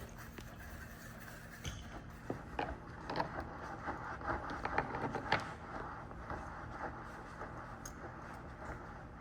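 Hand crank of a Taco GS300 outrigger mount being turned to raise the mount, giving a run of irregular clicks and scrapes from about two to five and a half seconds in.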